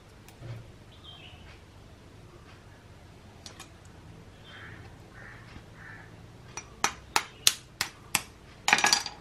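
A hen's eggshell is tapped and cracked open to separate the white. In the second half there are about half a dozen sharp taps, then a short, quick crackle of breaking shell near the end.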